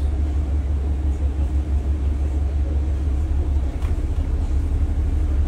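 Bus engine idling with a steady low rumble, heard from inside the upper deck while the bus waits in traffic.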